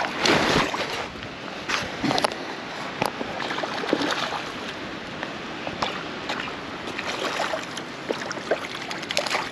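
Water splashing and running, with scattered short clicks and knocks; the loudest splash comes right at the start.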